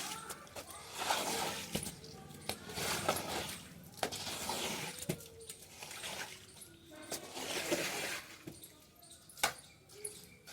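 Water splashing and swishing in repeated swells about every second or two, with a few sharp knocks among them.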